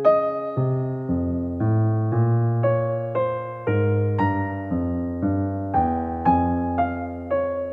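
Background piano music: a gentle melody with a new note about every half second over held low bass notes.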